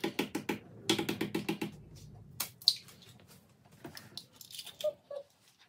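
A hen's egg being tapped on a stainless steel mixing bowl and broken open: a quick run of taps, then a few scattered cracks.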